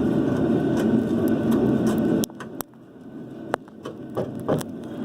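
A steady low rumbling noise that cuts off abruptly about two seconds in, followed by a few sharp metallic clicks and knocks from work on the rear shock absorber as it is being removed.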